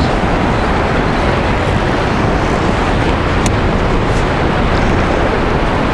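Strong wind buffeting the camera microphone on rough sea: a steady, loud rumble with no pauses.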